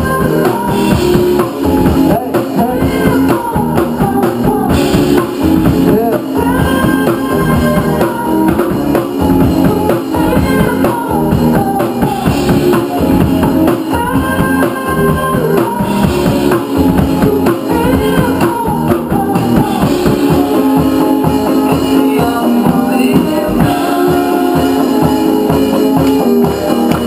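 Loud live rock band playing: drum kit, guitar and a singer on the microphone, with a riff that repeats about every two seconds, heard over a club's PA.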